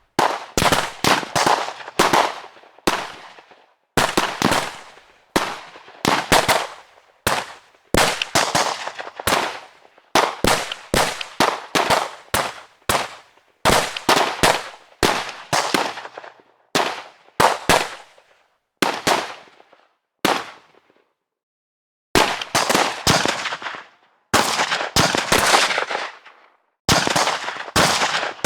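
Gunfire: a string of sharp shots, some single and some in quick bursts, each with a short reverberant tail. There is a pause of about a second and a half roughly two-thirds of the way through, after which faster bursts follow.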